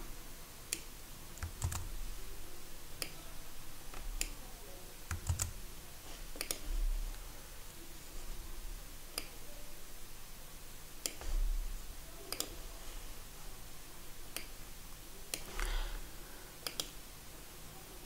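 Faint, scattered computer keyboard and mouse clicks, a dozen or so single clicks at irregular intervals, with a couple of soft low thumps.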